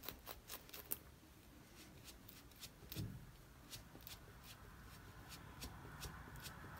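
Faint rustling and scratching of a cloth rubbed over a foam ink dauber to wipe it clean, with scattered light ticks and a soft thump about three seconds in.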